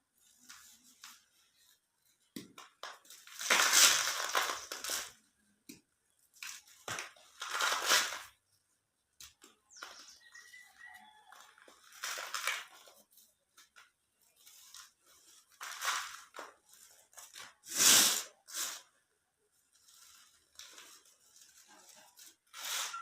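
Soft cement cubes being crushed and crumbled: irregular crunches with short quiet gaps, the loudest about four, eight and eighteen seconds in.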